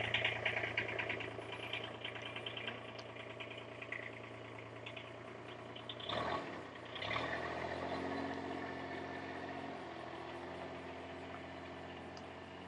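An engine running steadily with a low hum. About six seconds in there is a short noisy surge, then the hum carries on at a slightly lower pitch.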